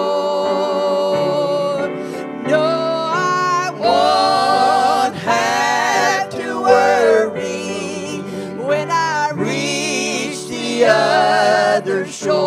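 Two women singing a gospel hymn in harmony with wide vibrato, accompanied by a grand piano.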